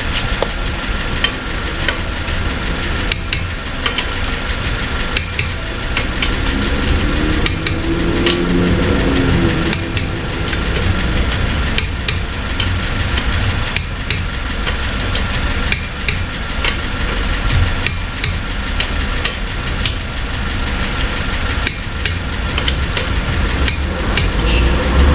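Air impact wrench tightening a car's wheel nuts, hammering in short runs again and again, over a steady low hum.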